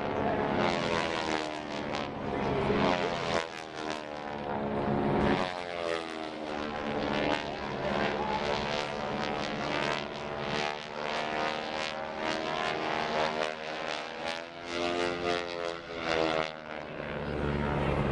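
Propeller airplane engine passing and manoeuvring, its drone rising and falling in pitch again and again.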